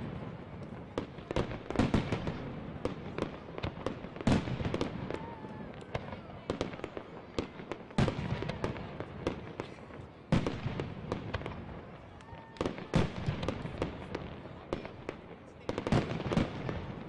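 Aerial firework shells bursting in a steady string of loud booms every two to three seconds, with many smaller cracks and crackles between them.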